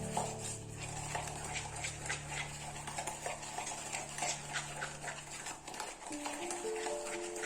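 A utensil stirring cake batter in a mixing bowl: repeated light scrapes and taps against the bowl. Background music underneath, with held notes coming in about six seconds in.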